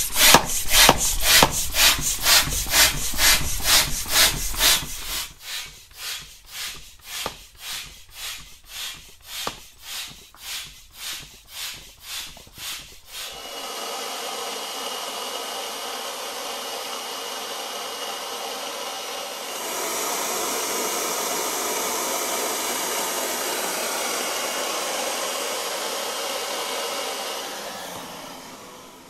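Air being pumped through a hose into an inflatable catamaran pontoon. For the first half it is a series of rhythmic pumping strokes, about two a second, that grow weaker after about five seconds. Then a cordless electric inflator runs with a steady rushing noise and a thin whine; it gets louder about two-thirds of the way in and winds down at the end.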